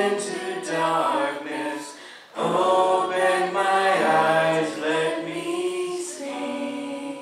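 A small praise team of women's and a man's voices singing a worship song in harmony. The singing breaks off briefly about two seconds in, resumes, and ends on a held note that fades near the end.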